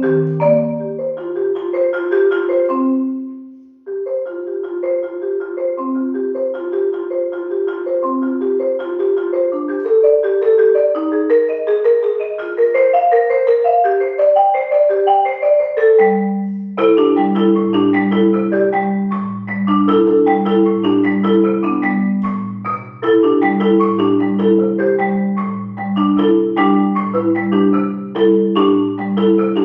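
Marimba ensemble music: several parts of short, struck notes interlocking in a quick rhythm. There is a brief break about four seconds in, and a low bass part of repeated notes joins about halfway through.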